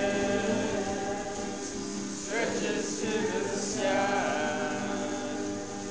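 Singing of a worship song over steady instrumental accompaniment.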